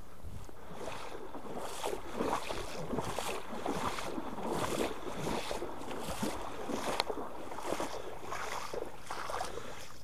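Rhythmic splashing of marsh water, a stroke roughly every two-thirds of a second, from someone moving through the water.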